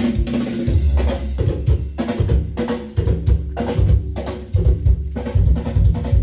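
Music with a drum beat and heavy bass playing through a home-built speaker system: tower speakers driven by an amplifier module.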